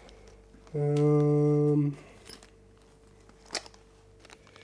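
A man humming one steady low note for about a second, a wordless tired "mmm". A single sharp click follows as small plastic parts bags are handled.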